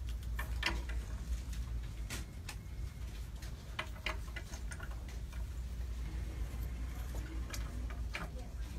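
Sparse, irregular light clicks and taps over a low steady room hum, as pens are picked up, used and set down on a wooden table during a document signing.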